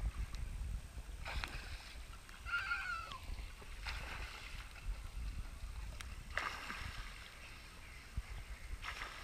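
Pool water lapping and sloshing against a camera held at the surface, with short splashes about every two and a half seconds.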